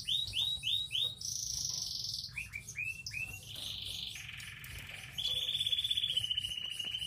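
Green singer finch (yellow-fronted canary) singing: a rapid run of repeated curving notes broken by a buzzy higher trill, then long, even trills through the second half.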